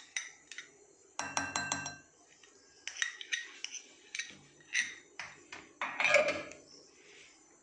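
Steel spoon clinking and scraping against a glass mixing bowl and a small serving dish as chopped onion is scraped out; a run of sharp clinks, some ringing briefly, with the loudest scrape and clatter near the end.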